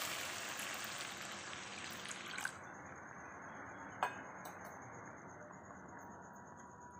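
Water poured into a hot wok of frying fish-curry masala, setting off a loud sizzle that fades steadily over the first few seconds to a faint hiss. A light click comes about four seconds in.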